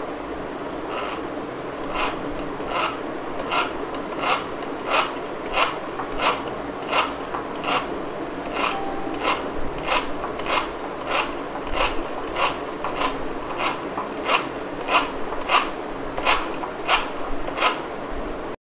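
Rotary egg beater whisking a raw egg in a glass bowl: a steady rasping whir of the blades through the liquid, with a regular scrape about one and a half times a second that gets louder about two seconds in.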